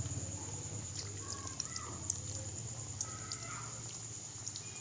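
Potato roll samosas frying in hot ghee: a steady sizzle with scattered crackles and pops, over a steady low hum.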